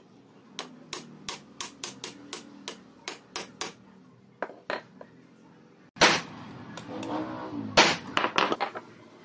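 Hammer blows on steel, driving a ball bearing and its collar down onto an angle grinder's shaft in a vise: a quick run of about a dozen light taps, about four a second, then two more. About six seconds in come a few much heavier, ringing metal blows.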